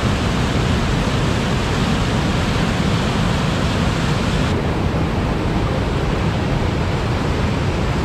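Whitewater rapids of a mountain river rushing, a loud steady rush of water. The high hiss thins a little about four and a half seconds in.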